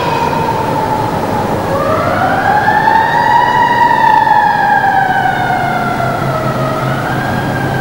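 A siren-like wailing tone with overtones. One wail sinks away, then about two seconds in another rises and slowly falls again, over a steady low hum.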